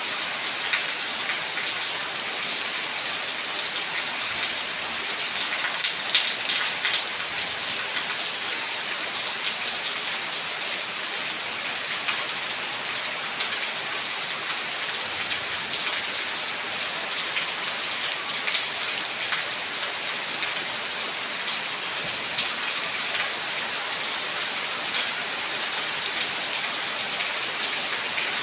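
Steady heavy rain falling into shallow puddles and onto stone slabs: a dense even patter of drops, with a few louder individual splashes.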